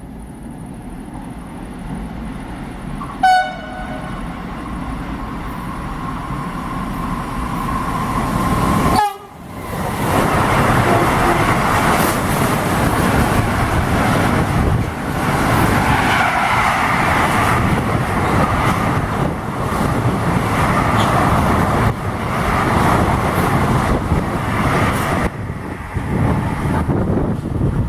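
A train approaching with its noise building, giving one short horn toot about three seconds in. From about nine seconds it passes close in a loud, steady rush of noise.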